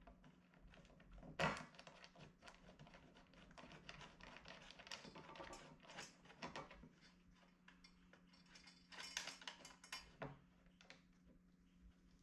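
Small metal seat-bracket hardware and tools being handled: scattered light clinks and rattles of bolts and washers, with one sharper knock about a second and a half in.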